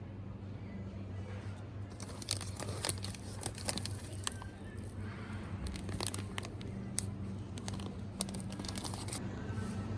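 Packaging being handled: crinkling and a run of small sharp clicks between about two and nine seconds in, over a steady low hum.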